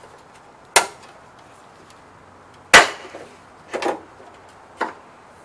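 Four sharp clacks about a second apart, the second the loudest: plastic trim clips being pried and popped loose with a pointed tool on the inside of a car's hatch lid.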